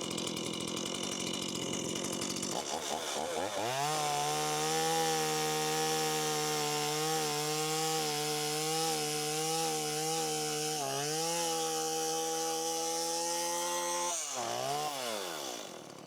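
Two-stroke chainsaw idling, then revved up to full throttle about three seconds in and held there while cross-cutting the end of a 6x6 timber post, its pitch dipping slightly a few times as the chain bites. Near the end the throttle is released and the engine winds back down.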